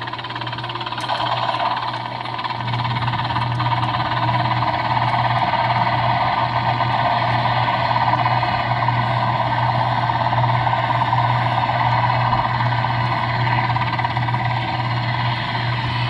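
Jolly Roger Rescue Helicopter kiddie ride running: a steady mechanical whirring sound over a constant low hum, which gets louder about two and a half seconds in.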